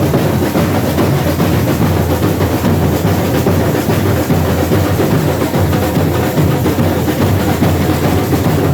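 Samba percussion corps (bateria) playing a fast, dense drum rhythm, loud and without a break.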